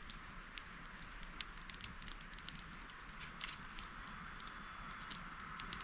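Wood campfire crackling, with scattered sharp pops over a faint steady hiss.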